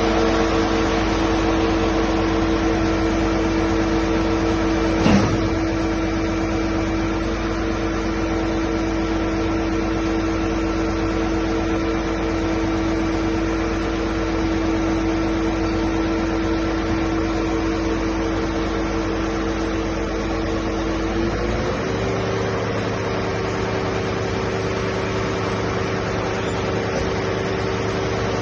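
Concrete pump with telescopic boom running with a steady mechanical hum and whine. There is a single click about five seconds in, and a little past two-thirds of the way through the whine steps slightly higher as the low rumble drops away.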